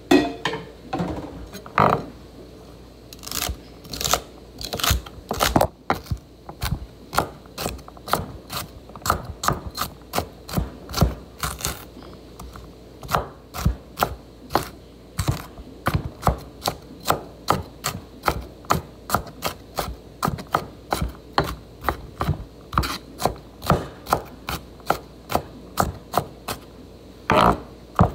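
Kitchen knife chopping celery on a wooden cutting board: a long, uneven run of sharp knocks, about two or three a second.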